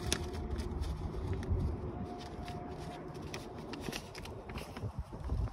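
Brown paper sample bag crinkling and rustling in gloved hands as it is folded shut, in a run of short irregular crackles. Wind rumbles on the microphone underneath.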